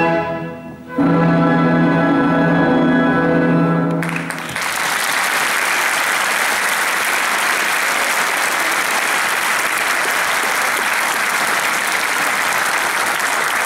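An orchestra plays the closing chords of a number, ending on a long held chord, then audience applause starts about four and a half seconds in and continues steadily.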